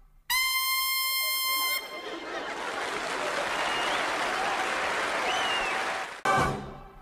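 Trumpet blowing one high held note for about a second and a half, followed by audience applause with a few whistles, which cuts off suddenly near the end.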